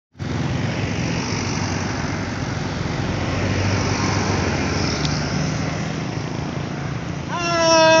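Road traffic passing close by: car and motorcycle engines running and tyres on a concrete road. A loud steady tone starts near the end.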